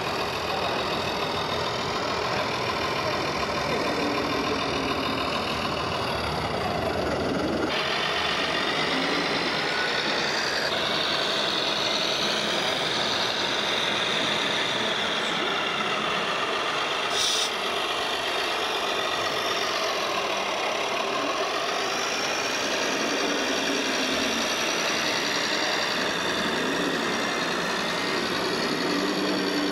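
Radio-controlled model trucks running, with truck-engine sound and a whine that rises and falls in pitch as they drive. The sound changes abruptly about eight seconds in, and there is a short click around seventeen seconds.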